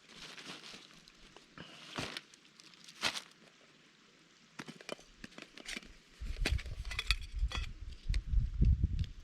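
Camping gear being handled while setting up camp: rustling and crinkling with scattered clicks and knocks. About six seconds in, a heavy, uneven low rumble of wind buffeting the microphone takes over.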